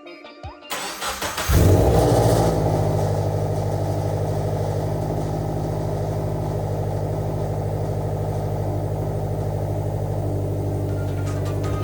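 Scion FR-S's 2.0-litre FA20 boxer four-cylinder cranking briefly, catching with a rev flare about a second and a half in, then settling to a steady idle. It runs without an audible misfire on its new ignition coil.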